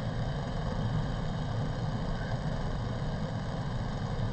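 Steady low hum with a hiss of background noise, unchanged throughout, with no speech.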